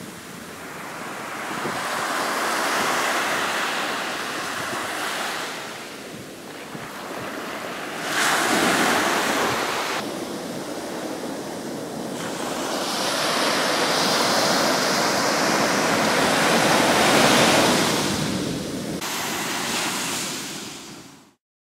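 Small waves breaking and washing up a sandy beach, the surf swelling and fading every few seconds as each wave rushes in and draws back. The sound cuts off suddenly near the end.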